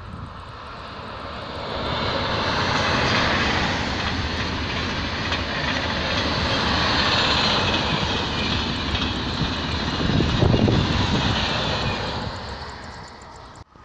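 TGV high-speed train passing at speed: a rushing noise of wheels and air that swells over about two seconds, holds, and peaks with a deep rumble about ten seconds in before fading. It cuts off abruptly just before the end.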